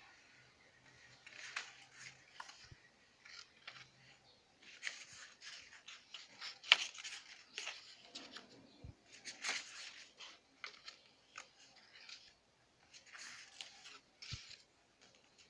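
Thick scrapbook paper strips being handled and shuffled: irregular rustling and sliding of stiff paper, in short bursts, with a sharper crackle about seven seconds in.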